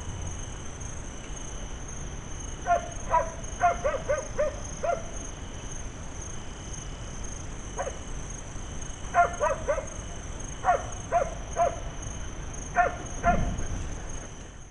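Jackals giving short, high yelping barks in scattered bursts of two to five, with a brief low rumble near the end.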